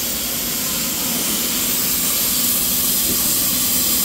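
CNC plasma cutter's torch cutting through steel sheet: a steady hiss with a faint steady low hum under it.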